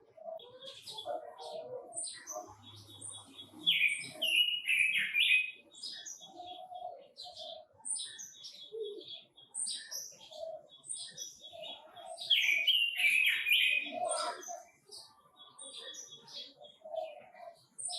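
Quế Lâm birds singing hard, a male with a female: a busy run of high chirps and short warbled phrases, densest in two bursts, around a quarter of the way in and again about two-thirds of the way in.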